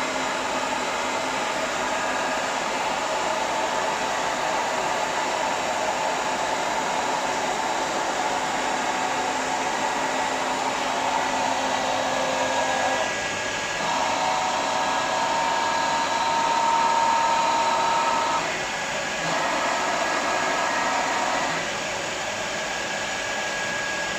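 Mikron WF 3 DCM CNC tool milling machine running: a steady whirring hum with whining tones. About halfway through the tones change, then cut out and come back twice.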